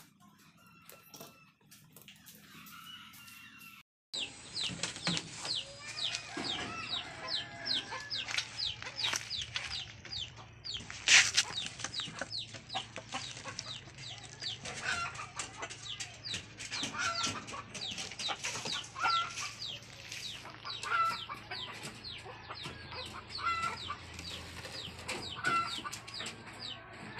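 Chickens clucking, a dense run of short high calls with a lower call recurring about every two seconds. It starts abruptly about four seconds in, after a few faint knocks.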